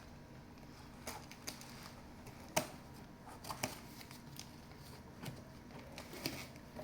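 Scattered light clicks and rustles of a dehumidifier's box and packaging being handled during unboxing, with one sharper click about two and a half seconds in.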